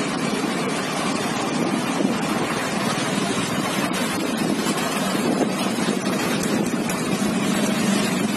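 Steady rush of wind on the microphone from a moving vehicle, with engine and road noise underneath.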